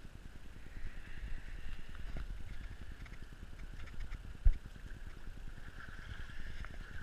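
Handling noise from a moving GoPro: a steady low rumble with scattered knocks and one sharp, loud knock about four and a half seconds in, over a faint steady hiss.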